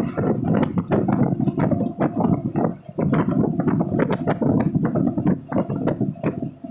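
Inside a moving vehicle on a highway: a steady low road rumble with constant, irregular rattling and knocking.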